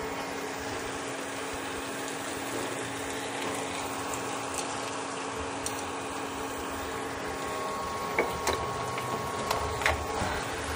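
Thick tomato sauce bubbling and sizzling in a stainless steel frying pan over a steady hum. In the last few seconds a spatula starts scraping and clacking against the pan as the sauce is stirred.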